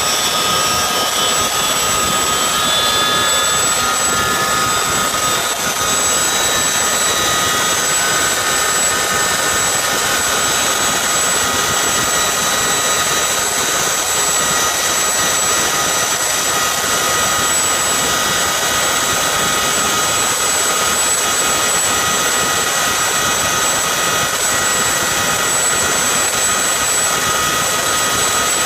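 CH-47 Chinook helicopter running on the ground, heard from inside the cabin at the open rear ramp: a loud, steady turbine whine with several high held tones over an even rushing noise.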